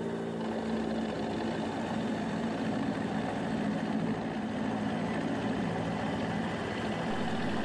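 Small CNC-converted X2 mini mill with an end mill cutting cast iron: the spindle motor runs steadily under a continuous rough cutting noise, which gets rougher shortly after the start.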